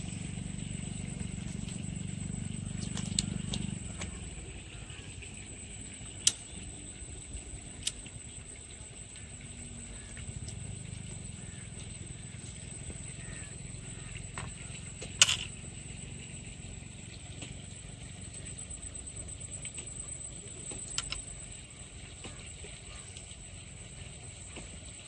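A few sharp clicks and taps from a fishing rod, line and hook being handled, the loudest about halfway through. They sit over a steady high-pitched whine and a low outdoor rumble.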